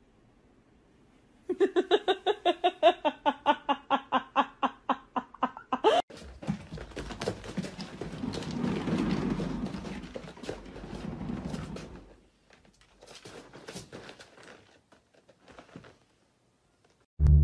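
A rapid string of short pitched sounds, about five a second, for some four seconds. After a cut, a rolling rumble as a cat runs in a cat exercise wheel, swelling and fading, followed by a few faint clicks.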